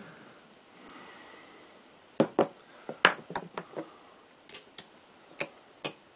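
Sharp metallic clicks and taps as a stainless Ruger SP101 revolver's frame and trigger guard housing are handled and a small screwdriver is picked up and set to pry the housing loose on a wooden workbench. There are about ten separate clicks, starting about two seconds in, the loudest near two and three seconds in.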